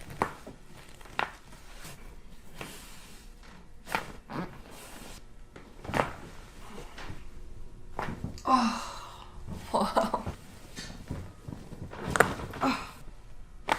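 Several sharp cracks and knocks from chiropractic adjustments, a few seconds apart, with short wordless vocal sounds from a person a little past the middle.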